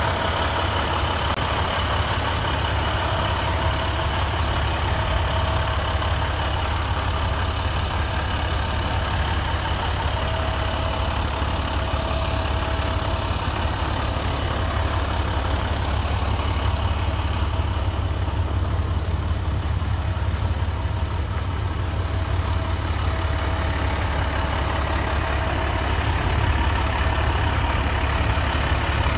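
International 4300 dump truck's MaxForce DT diesel engine idling steadily.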